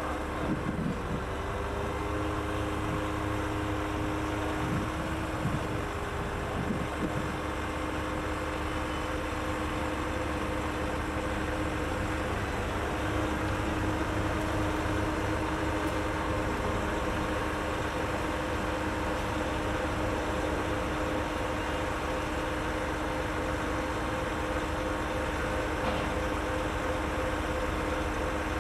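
Truck engine running steadily, driving the Hammar 195 HB sideloader's hydraulic cranes as they lift a 20-foot container onto the trailer, with a steady hum over the engine drone.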